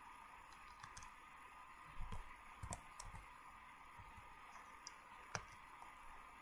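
Faint steady hiss with a few soft clicks and low knocks, clustered about two to three seconds in and once more near five seconds.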